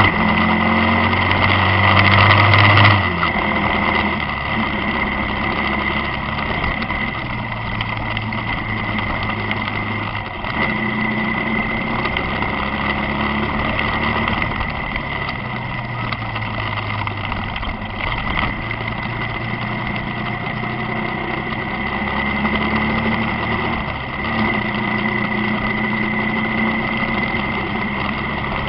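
Motorcycle engine running while riding on a highway, its note shifting up and down with the throttle, over road and wind noise. The engine is loudest in the first few seconds. A steady high-pitched whine sits over it.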